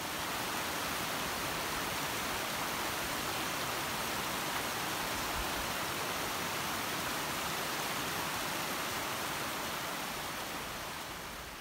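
Steady rush of running water, an even hiss that holds level and fades out near the end.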